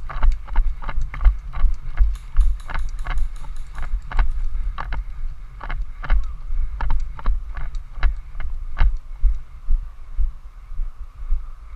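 Footsteps and gear knocking against a body-worn action camera while the player advances on foot, with irregular low thumps and sharp clicks throughout. About two seconds in there is a short run of rapid ticks.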